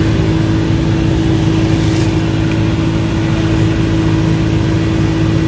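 A small engine running steadily at idle, a constant low hum with a steady tone above it.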